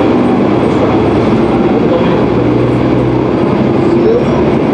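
Matsuura Railway MR-600 diesel railcar's engine running steadily under power as the single-car train starts to pull away from a station, heard from inside the passenger cabin.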